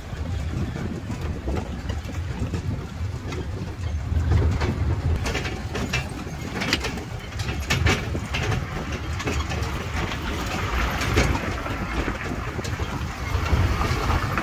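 Open-sided tourist road train running along a paved promenade: a steady low engine rumble, with a few sharp knocks and rattles from the carriages around the middle.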